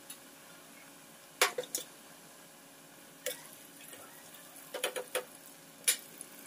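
Scattered clinks and knocks of kitchenware being handled, a pan and utensils set down on the stove, about half a dozen short sharp strikes over a faint steady background.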